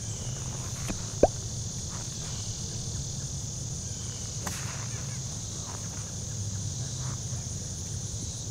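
A steady high-pitched chorus of insects over a low steady rumble, with one sharp click about a second in.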